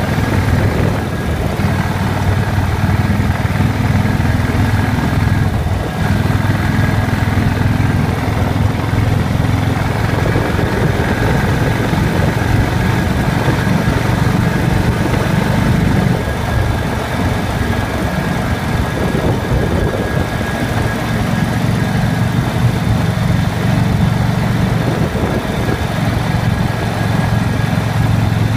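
Motorcycle engine running at road speed, a steady low drone with a haze of wind noise; the engine note drops and comes back up several times, as on and off the throttle through curves.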